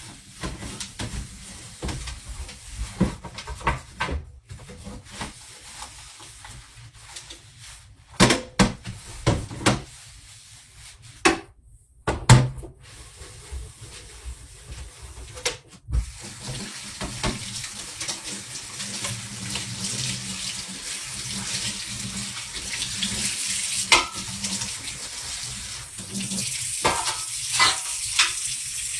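Water running from a tap into a sink, a steady hiss that builds over the second half, after a stretch of scattered knocks and clatter.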